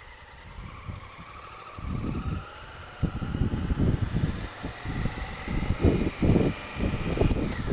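Honda Africa Twin CRF1000L's parallel-twin engine pulling away from low speed, its pitch rising steadily. From about two seconds in, wind buffeting on the helmet-mounted microphone comes in gusts that grow louder as speed builds.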